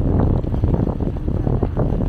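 Wind buffeting the microphone of a handlebar-mounted camera on a moving bicycle: a loud, low rumble with rapid, irregular flutter.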